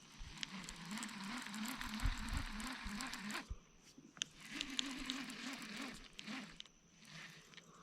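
Fishing reel being cranked to retrieve line: a gritty gear whir with a wavering hum that rises and falls with each turn of the handle, in two spells with a short pause about halfway through.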